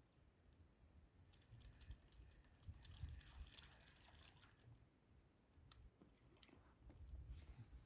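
Near silence: faint outdoor ambience with soft low rumbles and a few faint clicks and rustles.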